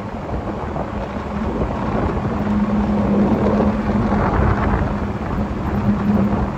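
Wind buffeting the microphone outdoors, a rough, steady rumble, with a low hum underneath that swells through the middle.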